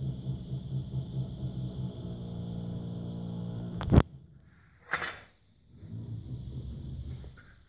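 A low, steady buzzing hum with a faint high whine above it, broken about four seconds in by a sharp knock, the loudest sound. A short rustle follows a second later, then the hum returns more quietly.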